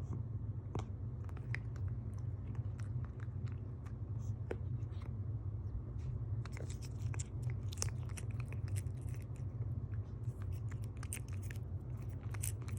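A cat licking and chewing a Churu lickable paste treat: a run of quick, irregular wet smacking clicks over a steady low hum.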